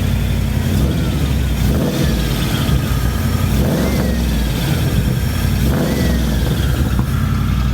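1996 Ford F-250's engine running steadily at idle through newly installed Flowtech headers and Summit mufflers; the exhaust is really quiet.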